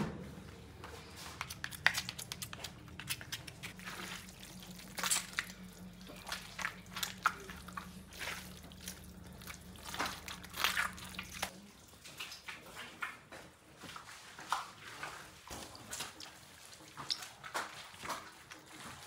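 Wet squelching and clicking of hands working raw chopped meat and sausage casing, with a low steady hum underneath that stops abruptly about two-thirds of the way through.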